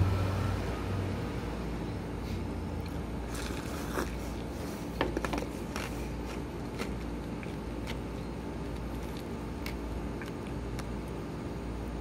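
Light clicks and scrapes of disposable chopsticks in a bowl of udon, mostly in the middle, over a steady low hum. A passing vehicle fades out at the start.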